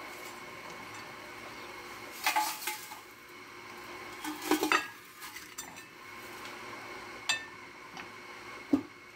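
Air fryer basket and cooked chicken tenders knocking against a ceramic plate as the tenders are tipped out: a few short clatters and scrapes, the loudest about two and a half and four and a half seconds in.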